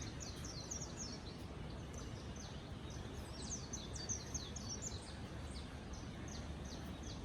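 Small birds chirping in quick runs of short, high, falling notes, busiest near the start and around the middle, over a steady low outdoor rumble.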